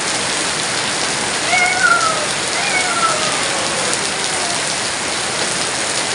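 Heavy rain falling steadily, with a cat meowing twice, about a second and a half in and again about a second later, the second call long and falling in pitch.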